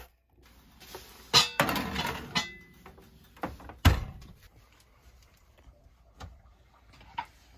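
A clatter and a scraping rustle about a second and a half in, then a single loud knock about four seconds in as an oven door is shut, followed by faint small clicks.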